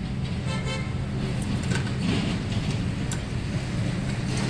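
A steady low mechanical hum, with a few light metal clicks from a bicycle front wheel's axle and nuts being fitted into the fork by hand, and a short pitched tone about half a second in.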